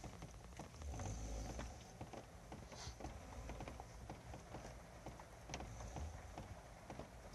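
A man snoring in his sleep: two low snores, about a second in and again about six seconds in, with faint clicks in between.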